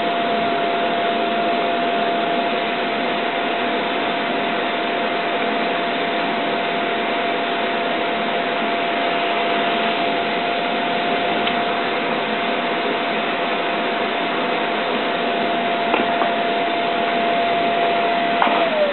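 Vacuum cleaner motor running steadily with a steady whine, sucking through a hose held against a circuit board to pull molten solder off an IC's pins. Near the end there is a click and the whine begins to fall as the motor is switched off and spins down.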